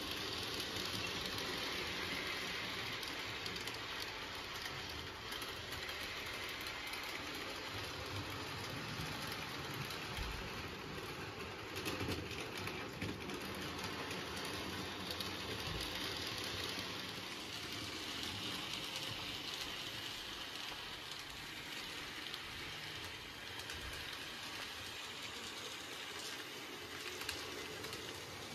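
N gauge model freight train running around the track: the small locomotive's motor whirring and the wheels rattling on the rails, with a few light clicks now and then.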